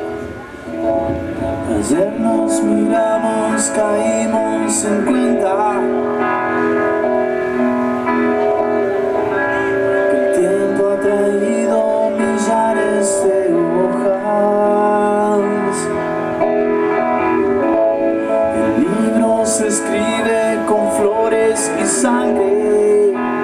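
Live rock band playing: electric guitars and bass over a drum kit, with clusters of cymbal strikes.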